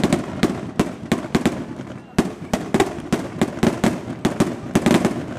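Fiesta rockets (cohetes) exploding in a rapid, irregular string of sharp bangs, several a second, with a brief lull about two seconds in.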